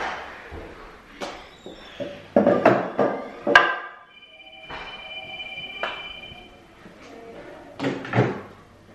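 Small plastic preschool stacking chairs knocking and clattering as they are lifted and set down on a table: a run of sharp knocks about two and a half to three and a half seconds in, and two more near the end.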